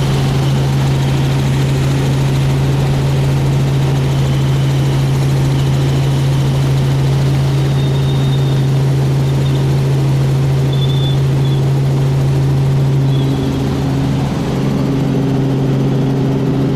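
Helicopter running steadily with a loud, even low hum. About 13 seconds in the pitch changes: the low tone drops away and a higher steady tone takes over.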